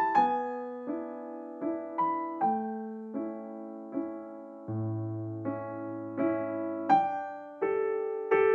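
Background piano music: a slow melody, a note or chord struck about every three-quarters of a second, with a low bass note held for about two seconds midway.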